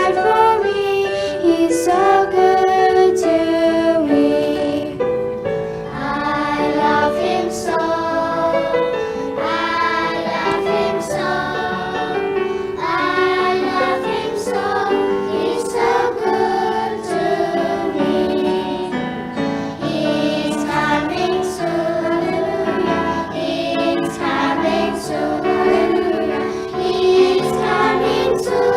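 Children's worship song: a group of voices singing together over instrumental accompaniment.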